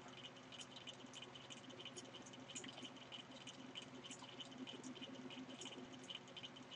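Faint, irregular clicking of a computer mouse, a few clicks a second, over a low steady hum.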